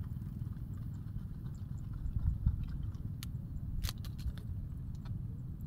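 Wind rumbling against the microphone outdoors, with a few short clicks and taps, most of them around the middle.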